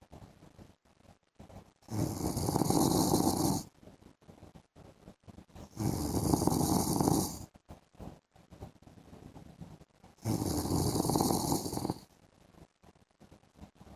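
A man snoring in his sleep: three long snores about four seconds apart, each lasting a second and a half to two seconds, with quiet gaps for the breaths between.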